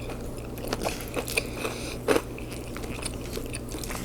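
Close-miked person chewing food with open-mouthed smacking, a string of irregular wet clicks and crunchy bites.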